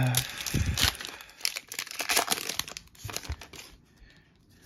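Foil booster-pack wrapper torn open by hand, with crackly crinkling and tearing for about two and a half seconds, then quieter handling with a few light clicks.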